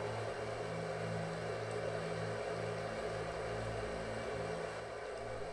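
Rushing water of the Elqui River's rapids, a steady even noise, with a low steady hum underneath.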